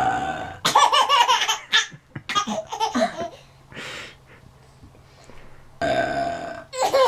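A drawn-out burp, then a baby laughing in bursts for a couple of seconds; a second long burp comes near the end, and the laughing starts up again.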